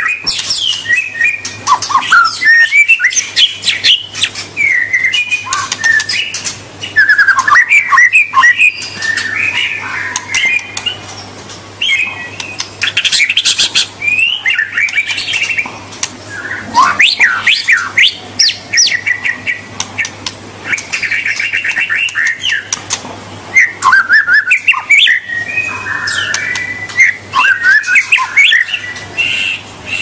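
White-rumped shama singing a long, varied song of quick whistled notes, rising and falling glides and rapid trills, mixed with short harsh notes.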